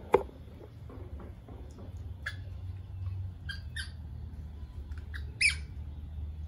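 Baby monkey giving short, high squeaks, about five of them, the loudest about five and a half seconds in and falling in pitch. A sharp tap comes just after the start.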